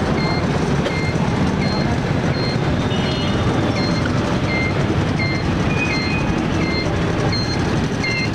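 Motorcycle engine running steadily at idle, with a short high electronic beep repeating about twice a second.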